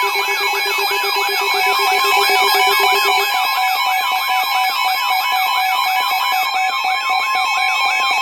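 Emergency weather-alert tones heralding a tornado warning: several steady electronic tones layered with a warbling alarm that sweeps up and down about four times a second.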